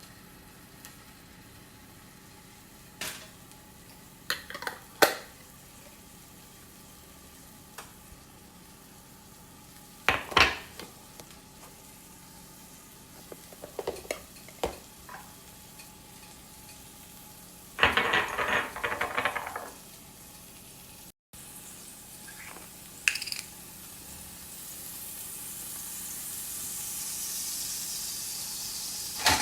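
Kitchen utensils clinking and clattering against pots and dishes now and then, with a busier run of clatter past the middle. After a brief cut, a hiss of food frying in a pan builds steadily toward the end.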